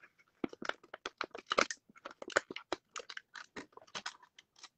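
Clear plastic bag crinkling and crackling in quick irregular bursts as the miniature figures inside it are handled and pulled out by hand.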